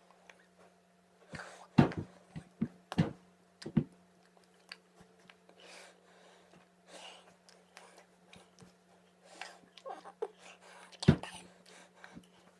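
Sharp slaps and claps of hands striking each other while signing, loudest about 2, 3, 4 and 11 seconds in, with soft mouth and breath noises between them and a steady low electrical hum.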